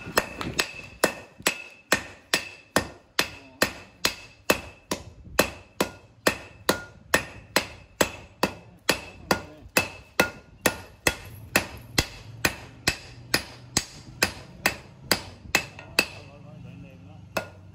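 Hand hammer striking steel on an anvil, hand-forging a knife blade from twisted steel bar: a steady run of blows, a little over two a second, each with a short metallic ring. The blows stop about sixteen seconds in.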